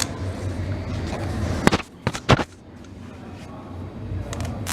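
Steady low rumble of a large hall, broken about two seconds in by a few sharp, loud knocks close to the microphone.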